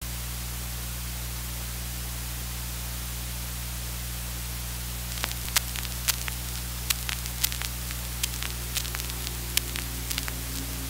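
Turntable playback hiss and mains hum, joined about five seconds in by scattered sharp clicks and pops as the stylus rides the lead-in groove of a 45 rpm vinyl single. Near the end a faint tone comes in as the song begins.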